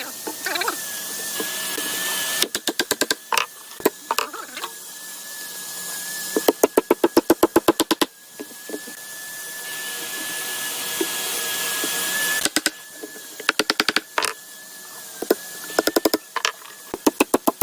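Workshop power tools at work: a motor whines steadily under a hiss that swells and then cuts off suddenly, three times. Between the hisses come runs of rapid, even knocking, about ten strikes a second.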